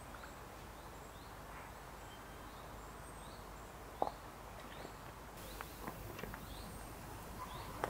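Faint outdoor ambience with distant birds giving short chirps now and then, and a few soft clicks, the clearest about four seconds in.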